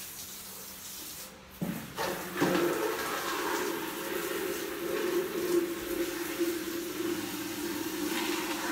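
A couple of knocks, then water running steadily from a tap into a plastic spin-mop bucket, filling it.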